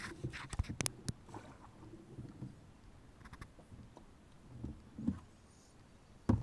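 Knocks and clicks from a small paddle boat on a river: scattered sharp clicks and low knocks of paddle and hull handling, the loudest a thump near the end.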